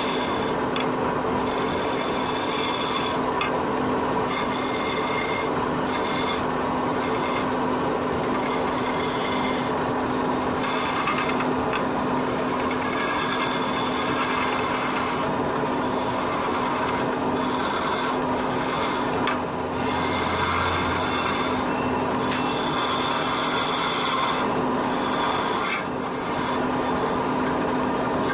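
Long hand-held turning chisel cutting into a spinning wooden spindle on a lathe: a rasping, scraping hiss that swells and drops with each pass of the tool. Under it the lathe runs with a steady hum.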